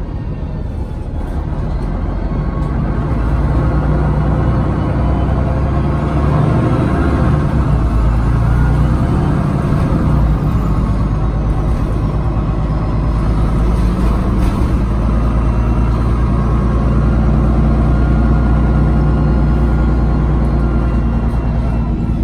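Inside a MAN NG363 Lion's City articulated city bus under way: the engine and drivetrain running with a deep rumble that grows louder over the first few seconds as the bus picks up speed, then holds steady as it cruises.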